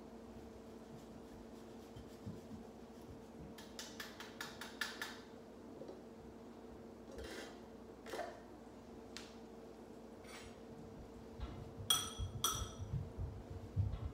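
Kitchen utensils clinking and scraping against a ceramic bowl and skillet as pasta is served and topped, with a quick run of clicks, scattered single knocks, and two sharp ringing clinks near the end. A steady low hum runs underneath.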